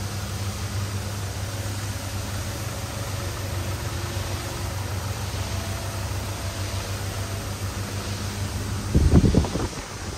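Steady low machine hum over a background hiss. About nine seconds in, a loud, rough burst of rumbling lasts about a second.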